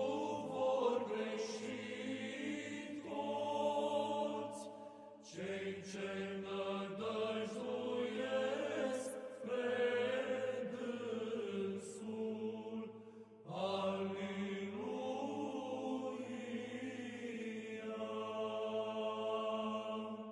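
Orthodox church chant: voices sing long, held phrases over a steady low drone, with short breaks between phrases. It begins to fade near the end.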